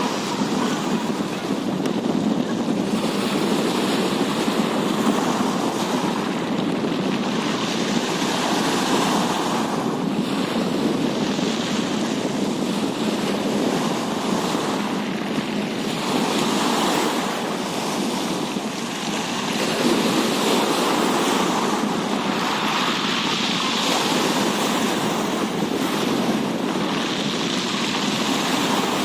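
Steady rushing water noise at sea, swelling and easing every few seconds, with wind buffeting the microphone: the water jets of a water jetpack attraction over the surf.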